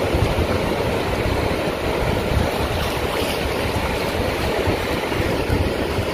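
Ocean surf washing in along the shore, with wind buffeting the microphone in a heavy, uneven low rumble.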